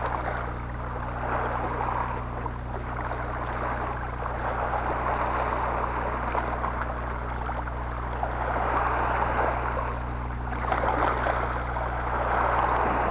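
Sea water sloshing and lapping, swelling louder in waves, strongest in the last third, over a steady low hum.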